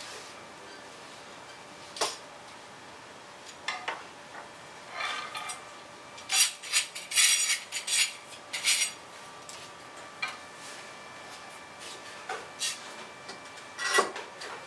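Metal parts clinking and rattling as a drawbar and four-jaw chuck are handled and fitted to a lathe's headstock: scattered clinks, with a longer run of rattling about six to nine seconds in.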